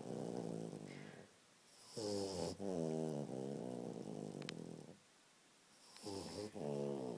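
Snoring in slow, regular breaths, one snore about every four seconds with a quiet pause between. Each snore is a wavering, pitched drone that turns rougher toward its end.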